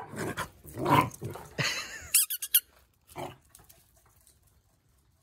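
Dogs play-fighting, with growls and high squeaks, dying away after about three and a half seconds.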